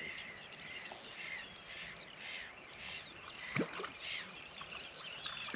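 Small birds chirping and singing in a busy chorus of short, repeated calls, with a single sharp knock about three and a half seconds in.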